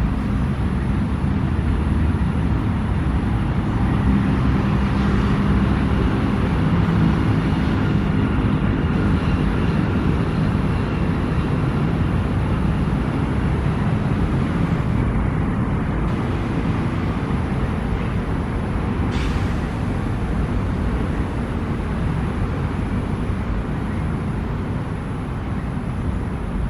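Steady rumble of city traffic, a continuous low noise with no sharp events, and a faint high-pitched steady tone above it.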